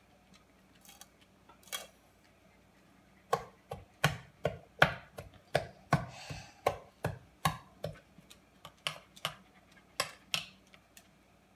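Small metal scoop clinking and scraping against a stainless steel dog bowl as dry dehydrated food mix is scooped and stirred in it. A few faint ticks, then from about three seconds in a run of sharp clinks, roughly two a second, with a short scrape in the middle.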